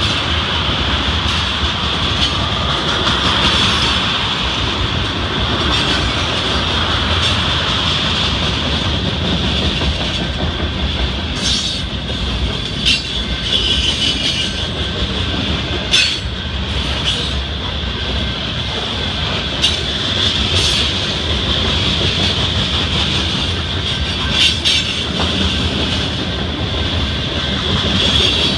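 Freight train cars rolling past close by: a steady rumble of steel wheels on rail under a constant high squeal, with a few sharp clacks as wheels cross rail joints.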